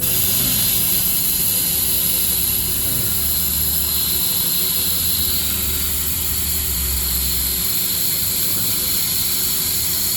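Air hissing out of a car's rear tire through its valve stem as it is deflated, because the tire reads high. A loud, steady hiss that starts suddenly and cuts off suddenly after about ten seconds.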